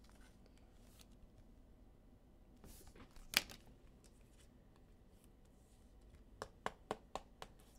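Trading cards being handled and flicked through by hand. There is one sharp click about three and a half seconds in, then a quick run of light clicks near the end.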